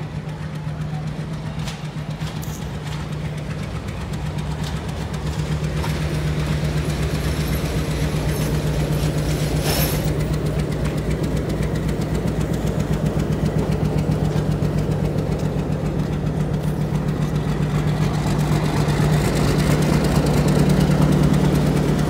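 Pakistan Railways HBU-20 diesel locomotive running light at low speed, its engine a steady low drone that grows louder as it draws nearer. A single sharp click about ten seconds in.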